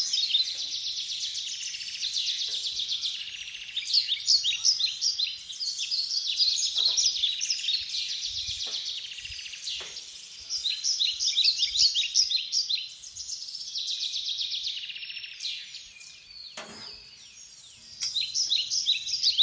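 Several songbirds singing and chirping together in a dense, continuous chorus of quick high notes, thinning out briefly near the end, with a few faint knocks.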